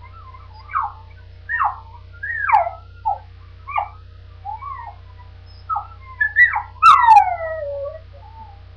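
Dog whining: a string of about ten short, high whimpers that slide down in pitch, ending in one longer falling whine. A sharp click comes just before the last whine.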